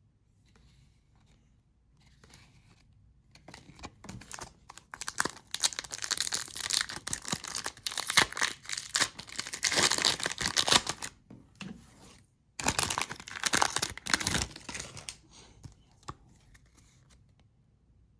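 Pokémon booster pack's foil wrapper being torn open and crinkled: a dense crackling that starts a few seconds in and runs for several seconds, breaks off briefly, then comes back in a shorter burst.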